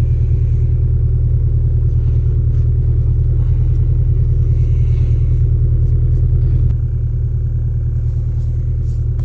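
Subaru Impreza's flat-four boxer engine running, heard from inside the car: a steady low rumble that drops to a lower level about seven seconds in.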